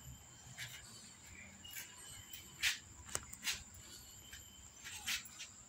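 Kittens' claws scratching and tapping on a plastic storage tub and its towel as they climb about: a few short, scattered scratchy taps over a faint steady high-pitched hiss.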